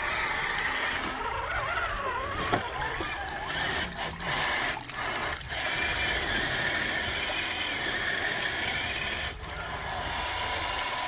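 High whine of RC rock crawlers' electric motors and drive gears, rising and falling in pitch with the throttle, briefly dropping out a few times around the middle.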